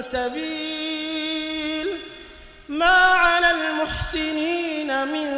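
Melodic Quran recitation by a single unaccompanied voice, holding long drawn-out notes with small ornamental turns. The voice breaks off for a breath about two seconds in, then comes back louder on a new long note.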